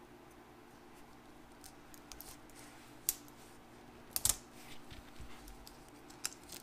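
Brittle, decades-old plastic wrapping on a ration cereal bar being handled and cracked open. Scattered small crackles and clicks, one sharp crack about three seconds in and a louder cluster a little after four seconds, over a steady low hum.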